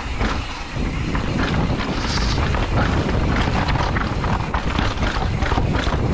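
Wind buffeting the microphone of a bicycle descending a rough dirt trail, with the bike's frame and parts rattling and knocking over bumps and steps.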